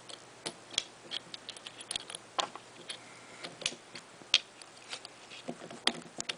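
Small sharp metal clicks and light scrapes, irregular and several a second, from an Allen key turning and shifting in a grip screw on a Proto SLG UL paintball marker's plastic frame.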